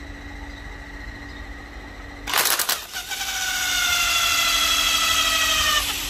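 A hand-held power gun spins a three-pin Toyota alternator for a bench charging test. A short burst of noise comes about two seconds in. From about three seconds in there is a high whine that falls slightly in pitch, and it cuts off near the end.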